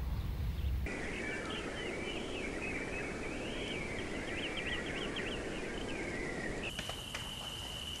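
Many small birds chattering at once, a dense tangle of quick rising and falling chirps. It starts abruptly about a second in over a low rumble and cuts near the end to a steady high tone with scattered ticks.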